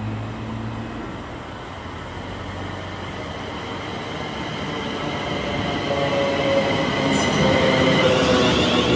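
London Northwestern Railway Class 350 Desiro electric multiple unit approaching and running past along the platform, its steady electric whine and wheel rumble on the rails growing steadily louder and loudest as the train draws alongside.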